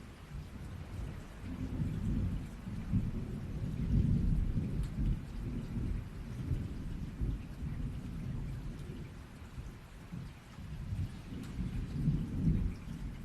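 Rolling thunder over steady rain, the rumble building a couple of seconds in and swelling again near the end.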